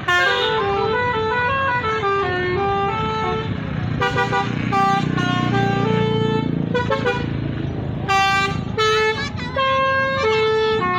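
Basuri 'telolet' multi-tone bus horn playing a quick melody of short stepped notes, over and over. A low rumble swells in the middle.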